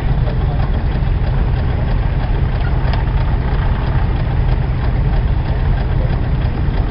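Vintage threshing set running steadily: a tractor engine drives a W. Foster threshing machine and a Jones stationary baler through a belt, with the machinery's constant churn and a few light knocks.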